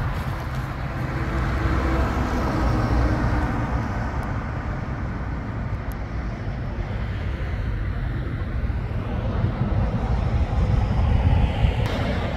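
Articulated truck driving past, a steady low engine and tyre rumble.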